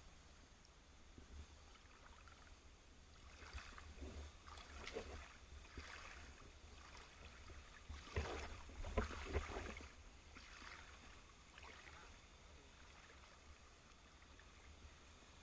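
Muffled water sounds through an underwater camera's housing: a low steady rumble with several seconds of irregular sloshing and bubbling in the middle, loudest about eight to nine and a half seconds in.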